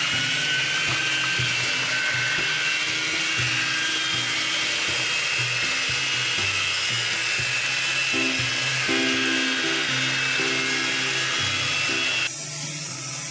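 Hand-held electric whisk running in a stainless steel bowl, beating a runny egg mixture with a steady high whirring that drops away sharply about a second before the end. Background music plays underneath.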